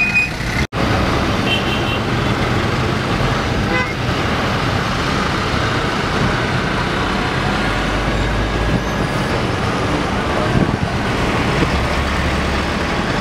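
Dense city road traffic heard from inside a moving car: a steady rumble of engines and tyres, with a short car horn toot about one and a half seconds in. The sound cuts out completely for an instant a little under a second in.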